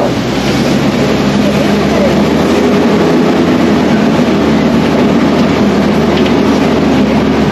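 An open-air safari truck driving along, heard from on board: a steady low engine hum under a dense, continuous rumble of the vehicle and its wheels on the track.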